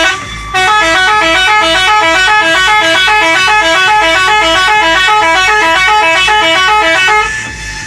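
Telolet horn of an Eagle High bus, a multi-trumpet air horn, playing a fast repeating tune of stepped notes for about seven seconds after a short opening blast.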